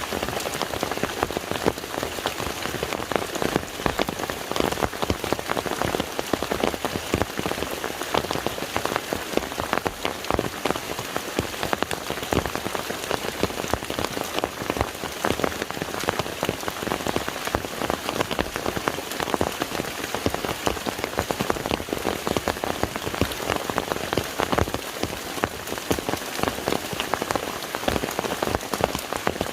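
Steady rain falling on a lake's surface, many individual drops striking the water at an even rate.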